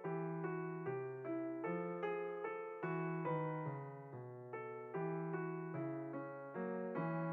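Background piano music: a gentle melody with chords, notes struck at an even, unhurried pace.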